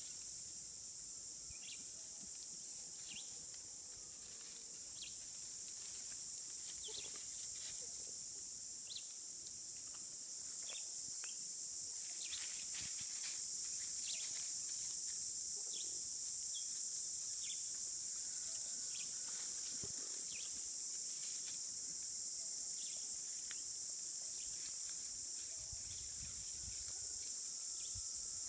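A steady, high-pitched insect drone, with scattered short chirps over it.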